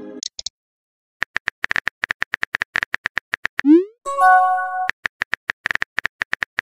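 Rapid phone-keyboard typing clicks, then a short rising swoop and a brief chime-like message tone as a text bubble pops up, then quick typing clicks again.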